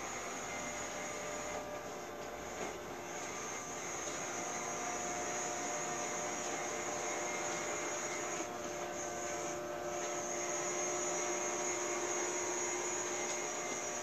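Robot vacuum cleaner running: a steady whir of its suction fan and brushes, with a thin high whine above it.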